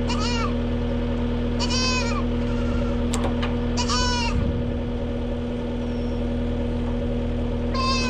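New Holland L220 skid steer's diesel engine idling steadily, with a farm animal bleating about four times over it in short, pitched calls.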